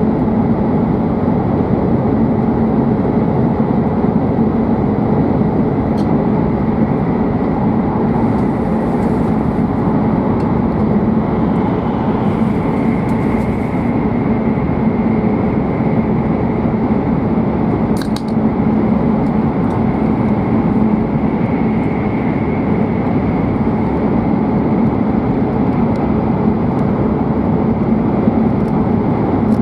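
Cabin running noise of a W7 series Shinkansen at speed: a steady, even rumble and rush from the wheels and the air, with a faint high whine that swells now and then. A single sharp tick comes about 18 seconds in.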